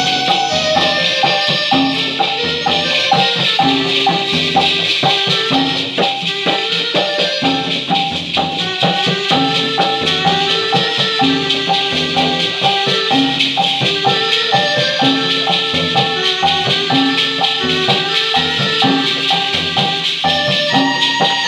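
Joget-dikir dance music played on an electronic keyboard: short melody notes over a regular bass beat, with a shaker rattling constantly.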